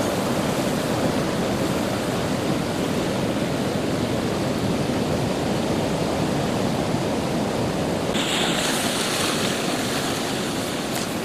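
Rushing, churning water and breaking surf as a wave surges from the sea into a river mouth, a steady roar of water noise. About eight seconds in the sound changes abruptly to a brighter hiss.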